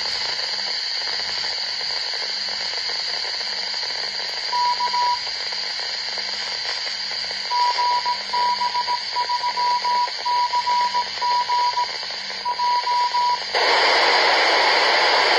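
Kenwood TH-F7 handheld's speaker receiving a weak, hissy 2 m repeater that has just been opened. Partway through, the repeater sends its callsign ident as a beeping Morse code tone. Near the end the repeater's carrier drops into a louder rush of open-squelch noise that cuts off suddenly as the squelch closes.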